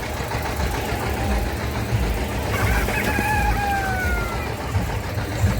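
A rooster crowing once, a long drawn-out crow starting about halfway through and falling slightly in pitch at its end, over a steady low rumble.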